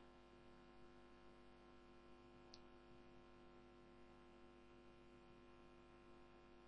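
Near silence: a faint steady electrical hum, with a single faint click about two and a half seconds in.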